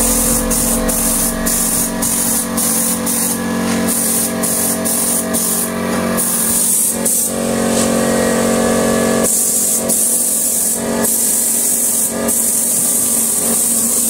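Gravity-feed air spray gun hissing as it sprays coating in repeated short on-and-off bursts, with longer continuous sprays in the second half, over background music.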